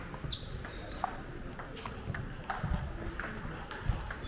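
Table tennis rally: the celluloid-type ball clicking off rubber paddles and the table a few times, with short squeaks of sports shoes on the hall floor and background chatter.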